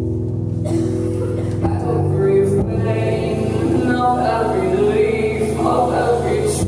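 Live music: a sustained low droning chord with a woman's voice singing over it, the voice coming in about a second in and wavering in pitch.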